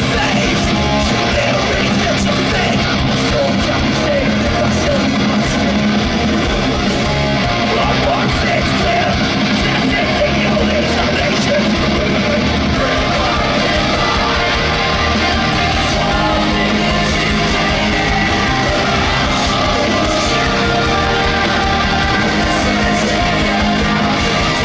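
A heavy rock band playing live at full volume: distorted guitars and drums with sung and shouted vocals, heard from within the crowd.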